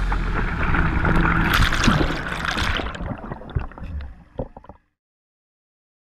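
A steady rushing noise with scattered clicks, fading over a couple of seconds and then cutting off to silence just before five seconds in.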